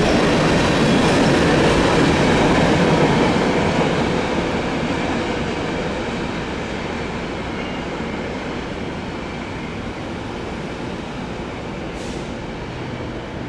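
Freight train of covered hopper cars rolling past, steel wheels rumbling on the rails. It is loudest for the first few seconds, then fades gradually as the last cars pull away around the curve.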